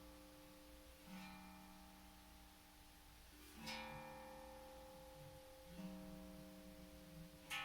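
Steel tank drum played slowly: four single notes struck a couple of seconds apart, each with a sharp attack and a long, bell-like ring that carries over into the next. The note about halfway through and the last one are the loudest.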